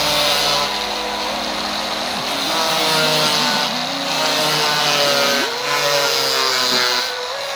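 Angle grinder with a cutting disc cutting into a computer keyboard: a high motor whine that sags as the disc bites and climbs back up, sharply about five and a half seconds in, over a gritty cutting hiss.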